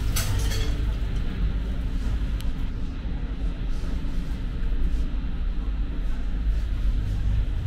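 Steady low rumble of background noise, with a few sharp clicks in the first half-second.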